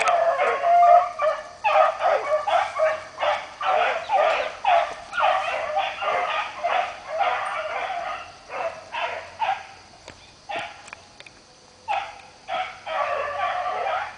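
Beagles baying, a rapid run of repeated high yelping cries while they trail game by scent. The cries thin out and quieten over a few seconds about two-thirds of the way through, then pick up again near the end.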